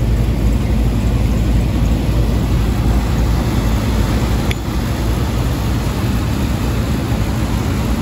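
Steady low hum and drone of a rooftop packaged air-conditioning unit running, with one faint tick about four and a half seconds in.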